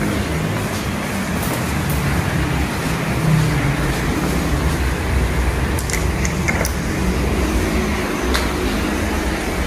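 Heavy rain falling steadily, heard from indoors as a loud, even hiss with a low rumble beneath it, and a few faint clicks in the second half.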